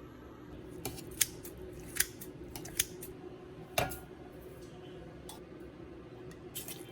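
Kitchen food preparation: a handful of short, sharp snipping clicks at irregular intervals, over a steady low hum.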